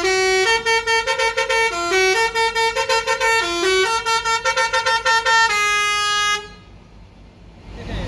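A bus telolet horn playing a multi-note tune: a loud chord of reedy tones stepping up and down in pitch, which stops abruptly about six and a half seconds in.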